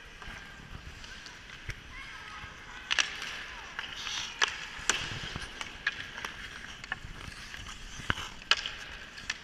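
Ice skate blades scraping and gliding on rink ice, with several sharp clacks of hockey sticks striking the puck and ice.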